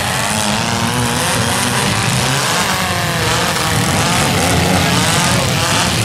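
Several compact demolition-derby cars' engines running at once, revving up and down as the cars push and manoeuvre on the dirt.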